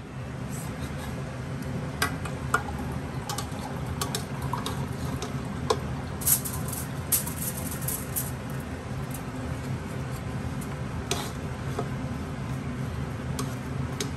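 Metal serving spoon scraping and clinking against a large aluminium pot while scooping out rice, with scattered sharp clicks over a steady low hum.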